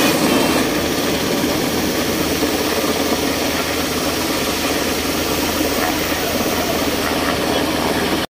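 Black Hawk helicopter hovering low overhead, its main rotor beating rapidly and steadily over the engine noise, loud throughout.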